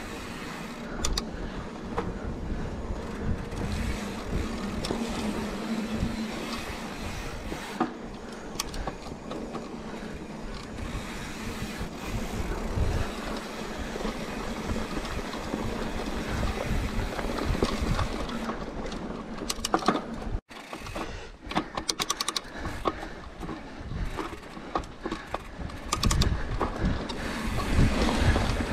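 Mountain bike riding over rocky dirt singletrack: the tyres rumble and crunch over dirt and stones, and the bike rattles and knocks over the bumps. The clatter is busiest about two-thirds of the way in and again near the end.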